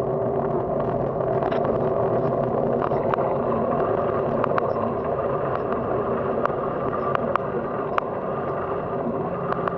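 Bicycle rolling across cracked asphalt: a steady rush of wind and tyre noise, broken by scattered sharp clicks and rattles.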